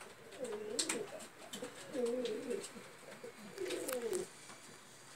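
Domestic pigeons cooing in a loft: three low, wavering coos in a row, with a few short clicks in between.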